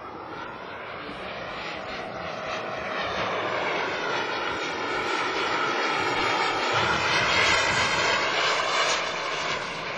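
Radio-controlled model jet flying past with a steady, high engine whine that grows louder to a peak about seven and a half seconds in, then fades a little.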